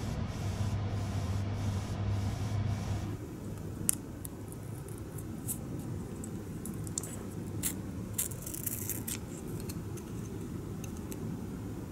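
Airbrush spraying: a steady hiss of air and paint with a low hum under it for about three seconds. Then small clicks, crinkles and rustles of masking tape being pressed onto a small plastic part and trimmed with a hobby knife.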